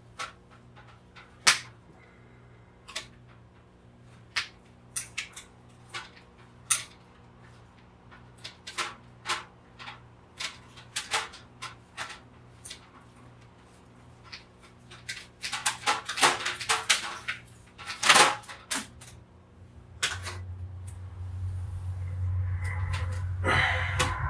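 Scattered sharp clicks and knocks of cords being handled and cut, with a dense flurry of them partway through. A steady low hum starts near the end.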